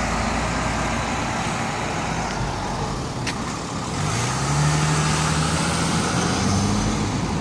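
City street traffic noise. From about four seconds in, a car's engine grows louder and climbs steadily in pitch as it accelerates past close by.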